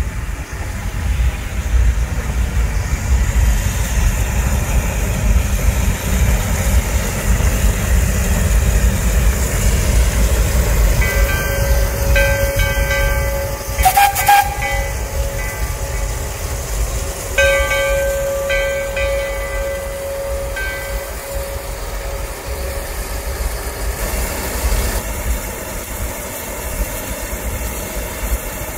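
1882 Baldwin narrow-gauge steam locomotive on the move, with a low rumble through the first half. Its steam whistle sounds twice, each blast a few seconds long: the first about eleven seconds in, the second about seventeen seconds in. A brief sharp sound comes between the two blasts.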